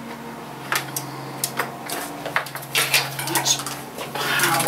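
Computer cables and their plugs being pulled free and handled on a desk: scattered light clicks, knocks and rattles, over a steady low hum.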